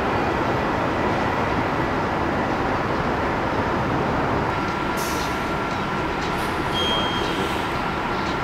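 Steady city traffic noise, an unbroken rumble of road vehicles with a faint steady hum joining about halfway through.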